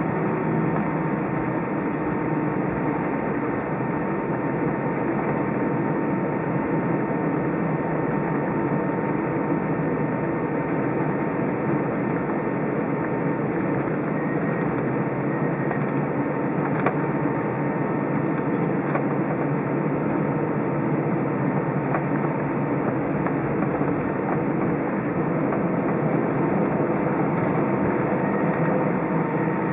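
Steady cabin noise inside an Airbus A320 as it taxis, the engines at idle and the air conditioning blending into an even rush, with a faint steady tone running through it.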